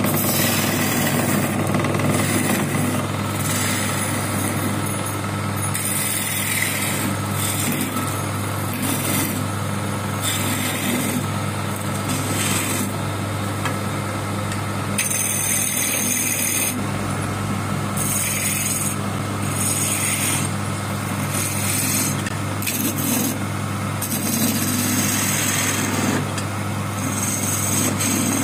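Belt-driven wood lathe running with a steady electric-motor hum, while a hand chisel cuts the spinning wooden spindle in repeated short passes, each a brief hissing scrape.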